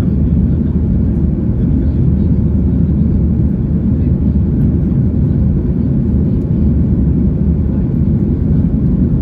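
Steady low rumble of a Boeing 737-800's CFM56-7B engines and airflow, heard inside the passenger cabin.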